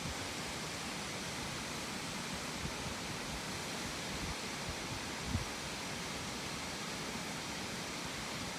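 Steady rushing roar of a large waterfall, an even hiss with no rhythm, with one faint low bump about five seconds in.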